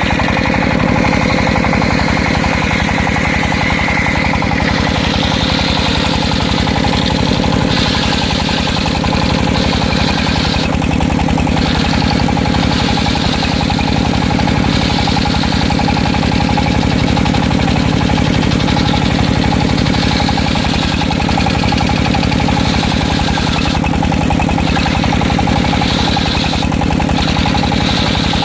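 Sawmill circular-saw rig running steadily, its engine pulsing evenly. A higher tone in the first few seconds fades out about four seconds in.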